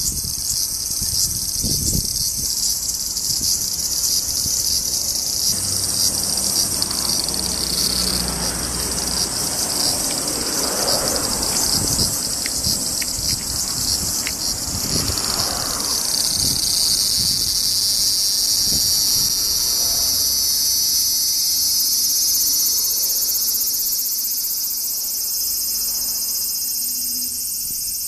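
Large brown cicada (aburazemi, Graptopsaltria nigrofuscata) singing at close range: a loud, steady, high sizzling drone with no pauses.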